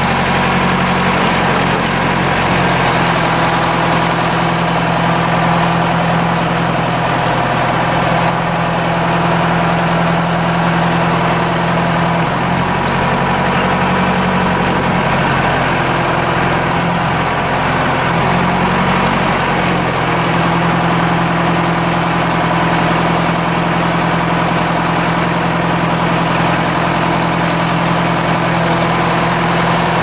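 John Deere 500C backhoe's engine running steadily while the backhoe boom and bucket are worked; the engine note wavers for a few seconds about halfway through.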